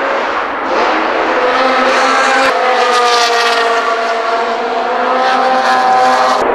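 Historic sports racing cars passing at speed, several engines running at high revs together, their notes sliding a little in pitch as the cars go by. The sound changes abruptly about two and a half seconds in, and again at the very end.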